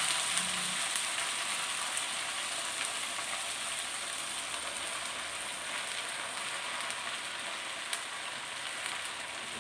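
Chawli (amaranth) leaves sizzling in very hot garlic-tadka oil in a clay pot, just after being added: a steady hiss that slowly dies down.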